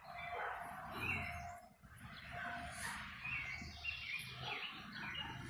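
Small songbirds chirping: a string of short, repeated high calls.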